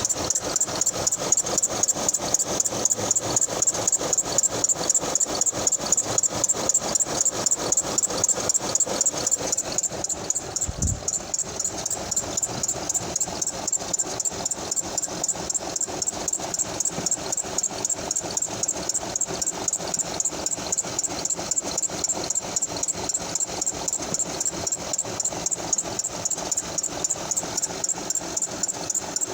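2005 Honda Odyssey engine running with a steady, rapid, high-pitched chirping tick from the serpentine belt drive, about two to three a second. It began after the alternator was replaced, and the owner suspects the serpentine belt. A brief low thump comes about eleven seconds in.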